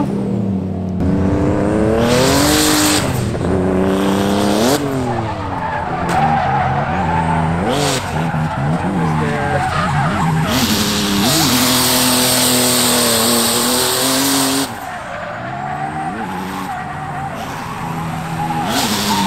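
Drift cars sliding on track, their engines revving up and down again and again as the throttle is worked, with tyres squealing and skidding over the top. The tyre noise is strongest in the middle, and everything drops a little about fifteen seconds in.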